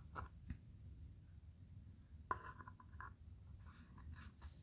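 Faint rubbing and small clicks of a plastic air filter being worked onto a Husqvarna 460 Rancher chainsaw, with one slightly louder scrape about halfway through.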